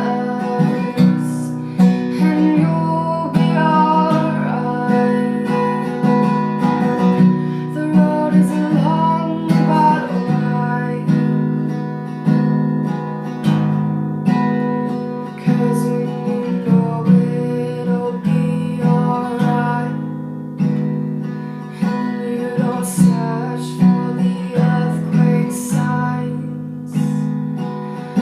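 Acoustic guitar strummed in a steady rhythm, playing an instrumental passage of an original song.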